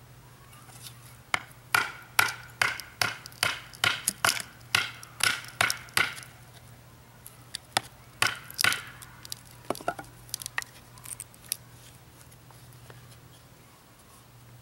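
Wooden baton striking the spine of a Bark River Bravo 1.5 knife to split a basswood stave: a fast run of about a dozen sharp knocks, roughly two and a half a second, then after a pause a short cluster of three and a few lighter knocks.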